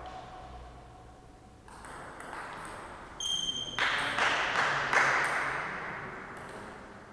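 Table tennis rally: a celluloid ball clicking off paddles and bouncing on the table in quick succession. It starts about a second and a half in, after a short lull.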